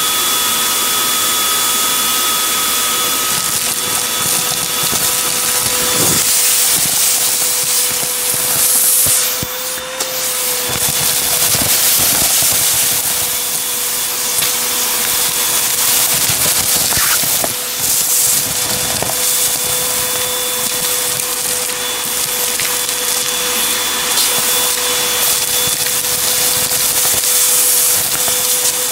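Vacuum cleaner running with a steady whine, its orange wand sucking gritty dust and small debris off a hardwood floor. Scattered crackles and rattles come from debris going up the tube, with a brief drop in the suction sound about ten seconds in.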